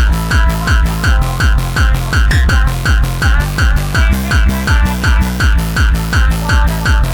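Hardtekk electronic dance music: a fast, heavy kick drum hits about three times a second, each kick dropping in pitch, with a synth stab between the kicks.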